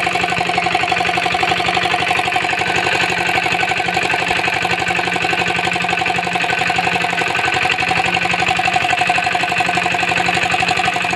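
Comet 5 HP single-cylinder stationary diesel engine running steadily, a rapid even firing beat.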